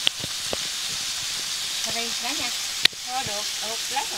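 Mixed vegetables stir-frying in a pan: a steady sizzle as they are stirred, with two sharp clinks about three seconds apart.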